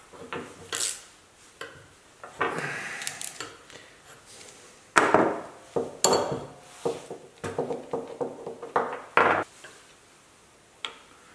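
Metal clicks, clanks and short rattles of a ratchet and a steel brake-line flaring tool being worked by hand, as the brake line is clamped into the tool's die block. They stop a little after 9 s, and one more click comes near the end.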